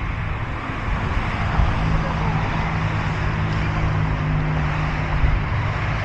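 Road traffic on a city boulevard: steady tyre and engine noise. A car engine's hum rises out of it from about a second and a half in and fades near the end.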